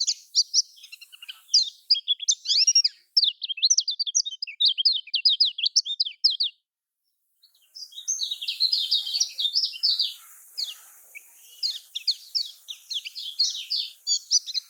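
Kecial kuning white-eye singing a fast, dense run of high chirps and trills. It pauses for about a second midway, then resumes even denser.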